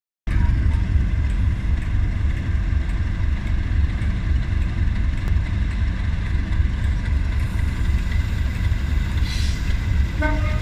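Class 37 diesel locomotives' English Electric V12 engines running with a steady low rumble.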